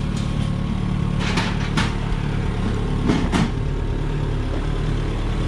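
Forklift engine running steadily as the forklift drives, with a few sharp metallic clatters about a second in and again around three seconds in.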